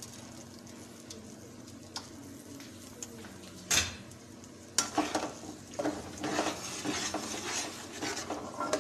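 Tomato and onion puree sizzling faintly in hot oil in a metal pot. A few sharp knocks of a metal spoon against the pot follow, the loudest near the middle, and from about five seconds in the spoon stirs and scrapes busily around the pot.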